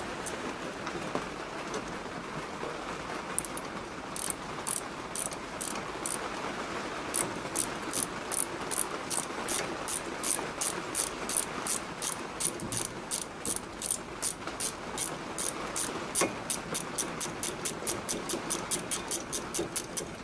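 Socket ratchet clicking as it is swung back and forth to undo a brake caliper carrier bolt. A few scattered clicks come first, then a steady run of about three clicks a second from about seven seconds in.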